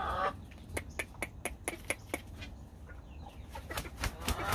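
Gamecock in a wooden pen: a run of sharp, irregular clicks, several a second, then a couple of wing flaps about four seconds in, with the bird's clucking starting right at the end.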